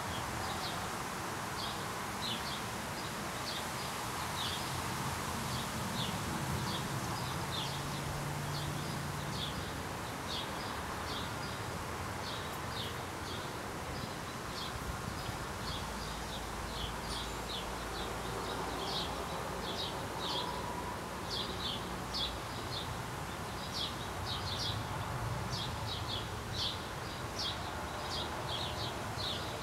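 Repeated short, high chirps from a small animal outdoors, a few a second and growing busier toward the end, over a low steady background rumble.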